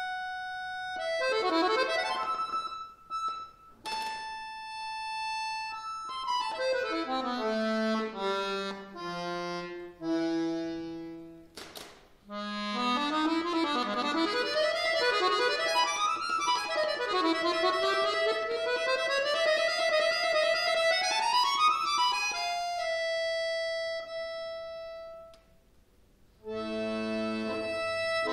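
Chromatic button accordion playing solo classical music: held notes and chords broken by short pauses, a sharp click about twelve seconds in, then a long stretch of fast runs sweeping up and down. The runs settle onto a held note, and chords return near the end.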